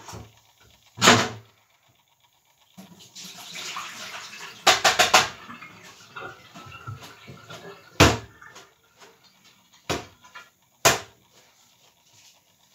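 Clatter of things being handled at a kitchen sink: several sharp knocks and clunks, a quick run of four clicks about five seconds in, and a short rush of water just before that.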